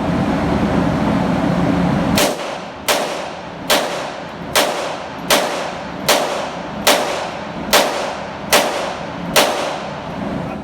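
Handgun fired ten times in steady succession, about one shot every 0.8 seconds, each crack trailing off briefly, over a constant hiss of background noise.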